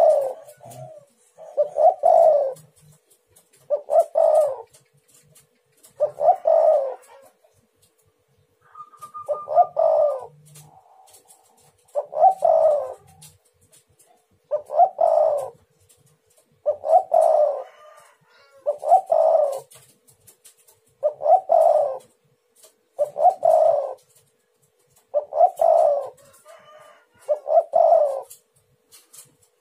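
Spotted dove (tekukur) cooing, the same call repeated steadily about every two seconds.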